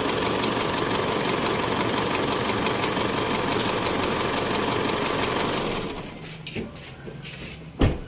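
Isuzu D-Max pickup engine idling steadily, running again after a failed starter relay was diagnosed and bypassed; it cuts off about six seconds in. A few light clicks and one sharp knock follow near the end.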